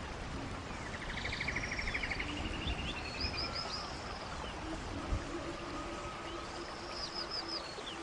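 A songbird singing the same phrase twice over steady background noise. Each phrase is a quick rattling trill followed by a few high downslurred whistles.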